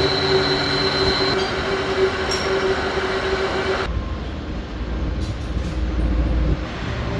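Kubota tractor engine running steadily, with a whine over the drone; about four seconds in the sound changes abruptly to a deeper rumble.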